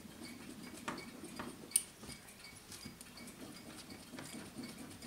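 Faint scraping and small metallic clicks of a steel clockmaker's hand broach worked in the bushed arbor hole of a brass mainspring barrel cap, opening the hole to fit the arbor. A few sharp ticks stand out, the loudest a little under two seconds in.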